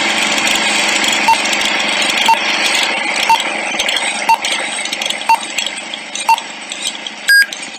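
Old film-leader countdown sound effect: a steady crackling hiss with a short beep about once a second, and a louder, higher-pitched beep near the end.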